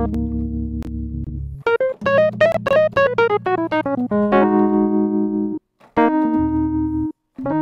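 Sampled electric piano from a software instrument being played: held chords over a low bass note, then a quick run of short notes stepping downward about two seconds in, then more chords.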